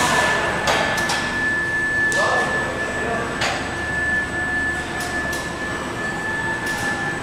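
Driverless electric forklift AGVs moving loaded pallets of plastic crates: a steady high tone runs under scattered knocks and clatter, with a fainter tone rising near the end.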